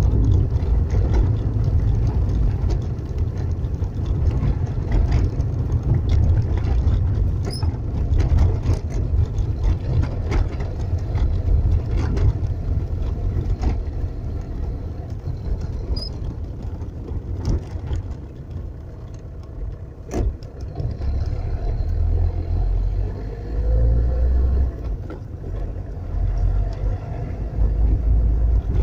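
Car running, heard from inside the cabin: a steady low engine and road rumble with scattered light clicks and knocks. The rumble eases about two-thirds of the way through, then builds again.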